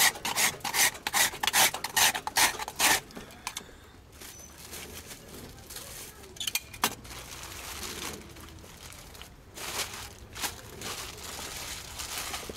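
Hand-held metal ice shaver scraped hard across a block of ice to make shaved ice for a raspado: rasping strokes at about two or three a second for the first three seconds, then a few single strokes after a quieter pause.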